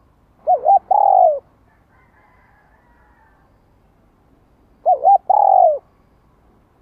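Spotted dove cooing: two calls about four seconds apart, each two short coos followed by a longer coo that falls in pitch at the end. It is the call of a caged decoy dove, used to lure and train wild doves.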